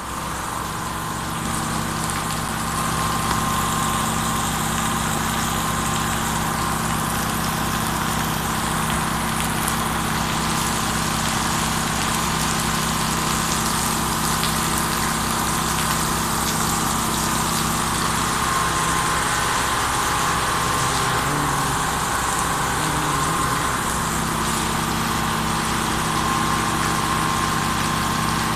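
Heavy monsoon rain pouring steadily onto a paved courtyard, with a steady mechanical hum underneath that wavers briefly about three-quarters of the way through.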